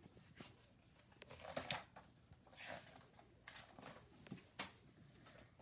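Near silence: quiet room tone with a few faint, brief soft noises.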